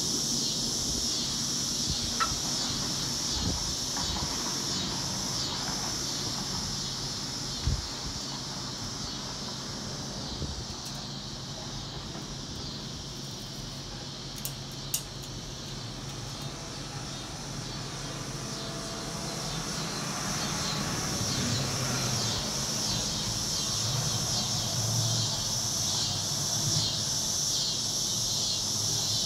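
Steady chorus of insects chirring in a high-pitched band, with a few short clicks scattered through it.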